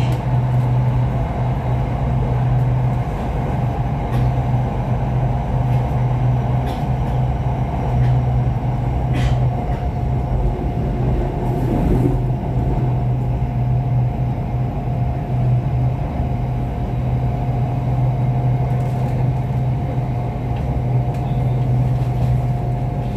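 Inside an SRT Red Line electric commuter train (Hitachi AT100 multiple unit) running at speed on elevated track: a steady low rumble with a constant higher hum over it.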